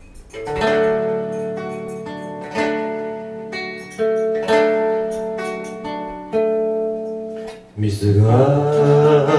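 Slow acoustic guitar intro: chords are strummed and left to ring out, with a new chord every second or two. Near the end a man starts singing in Japanese over the guitar.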